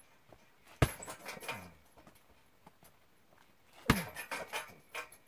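Two kicks thudding into a hanging heavy punching bag, about three seconds apart. Each is followed by a short rattle from the bag's mount and metal frame as the bag swings.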